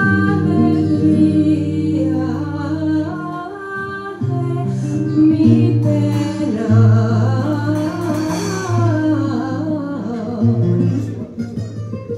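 Live flamenco song: a singer's voice in long, wavering, ornamented lines over flamenco guitar.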